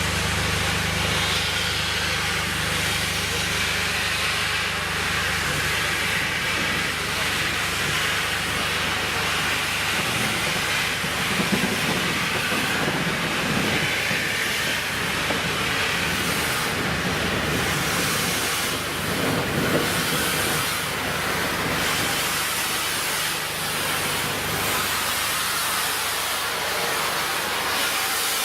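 Steam locomotive (A1 Pacific 60163 Tornado) letting off steam: a loud, steady hiss, with a low steady hum underneath that fades out near the end.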